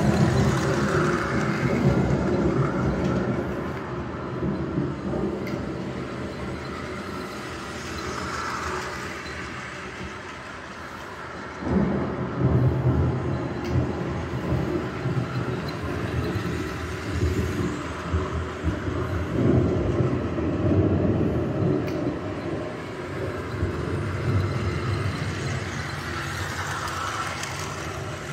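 Model train running on the miniature village's track, a continuous rumbling clatter. It grows quieter in the middle and then gets abruptly louder again a little before halfway.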